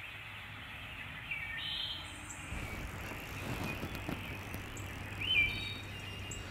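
Open-air riverbank ambience: a steady low rumble and hiss, with a few short high chirps, the loudest rising one about five seconds in.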